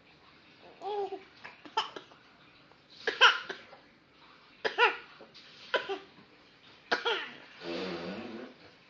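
A baby making short put-on coughs, about six of them, roughly one every second or so.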